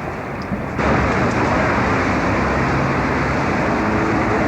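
Steady outdoor motor-vehicle noise with a low engine hum, jumping abruptly louder and brighter about a second in.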